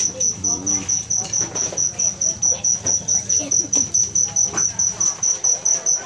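Rapid, steady high-pitched chirping, about five pulses a second, with faint voices underneath.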